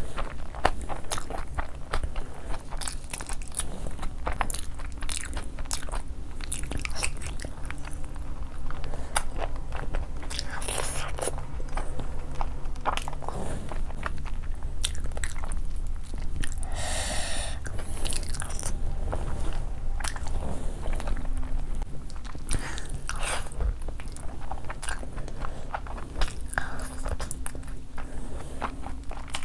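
A person chewing and biting food with many small wet, crackly mouth clicks, eating fried rice and mutton by hand.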